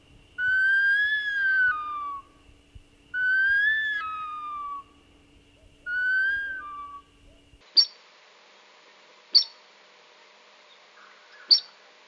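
Bush stone-curlew giving three long, eerie whistled wails, each rising, then falling, then dropping to a lower trailing note. From about two-thirds of the way in, a different recording follows: three short, sharp, high bird calls about two seconds apart.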